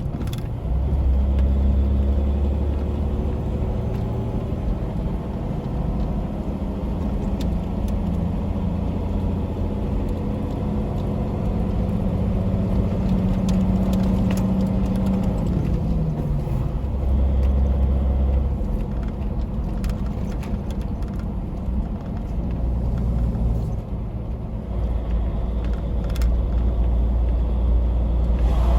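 Tractor-trailer's diesel engine running steadily with a low drone. Its pitch drops near the start and again about halfway through.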